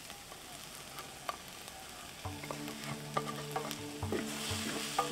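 A wooden spoon stirs diced bell peppers and beans in a clay pan, with scraping, clicks and a frying sizzle that grows louder near the end. Soft background music with held tones comes in about halfway through.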